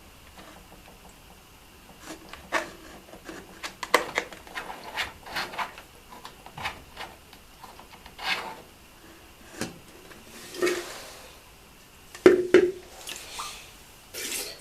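Handling noises: scattered clicks and knocks with rubbing and scraping, and a couple of short swishes near the end.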